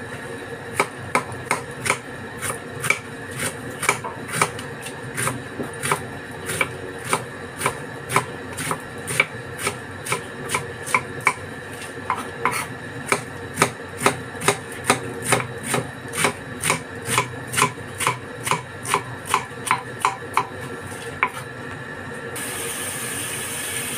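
Kitchen knife shredding cabbage on a cutting board: a steady run of slicing strokes, about two or three a second, that stops a couple of seconds before the end, when running tap water takes over.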